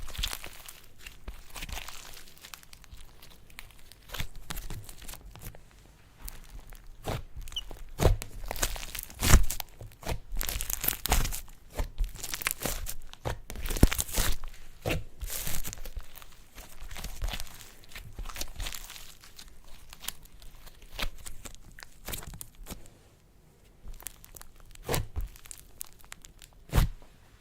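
Slime being worked by hand, squeezed, stretched and pulled apart, giving an irregular run of sticky crackles, pops and tearing sounds. It eases off briefly near the end, then a few loud pops follow.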